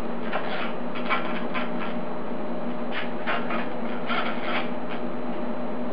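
Cordless impact driver running bolts into a stainless steel turbine heat shield on a turbo housing, in several short bursts of rattling with brief pauses between them.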